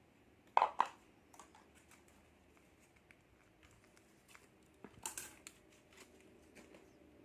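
Small plastic snack packets being handled and opened, crinkling: two sharp crinkles a little over half a second in, another about five seconds in, and faint scattered ticks between.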